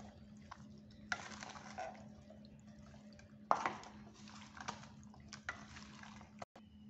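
A metal spoon stirring raw mutton, chopped onions, spices and oil in a stainless steel pan: wet squelching and scraping in bursts, with sharp clinks of the spoon against the pan about a second in and, loudest, about three and a half seconds in.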